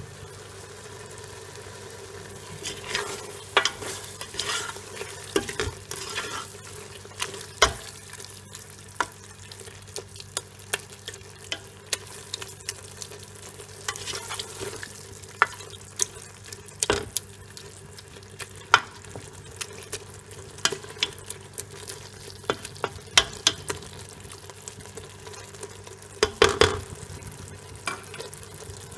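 Goat tripe frying in oil in a metal pot, with a steady sizzle, while a spoon stirs it, scraping and knocking against the pot in many irregular clicks. This is the bhuna stage: the tripe is being fried with tomatoes, onion and garlic once their water has cooked off.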